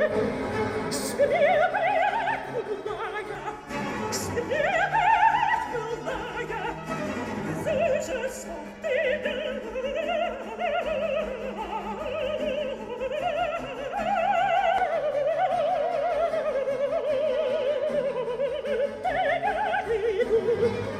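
Operatic singing with orchestral accompaniment, a voice with wide vibrato, played back through a loudspeaker. It cuts off abruptly at the very end.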